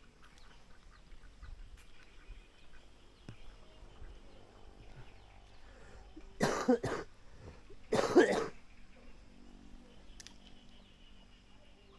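A person coughing in two loud bouts, the first a quick double cough about six and a half seconds in, the second about a second and a half later.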